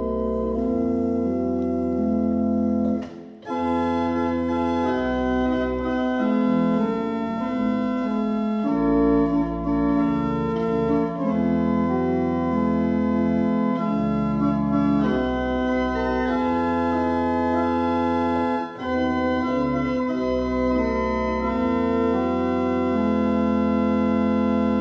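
Church organ playing held chords that change every second or two, with a brief break about three seconds in.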